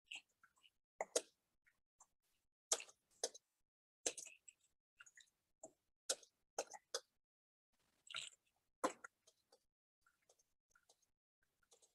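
Computer keyboard typing: faint, irregular key clicks as a sentence is typed.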